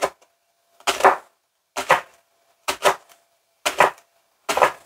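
Chef's knife slicing a leek into thin rounds on a plastic cutting board, about one cut a second. Each stroke is a short double knock as the blade goes through the leek and taps the board.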